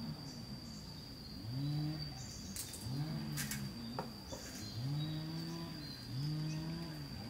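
Low animal calls, each rising and falling in pitch, repeating about once a second with several overlapping, over a steady high-pitched whine.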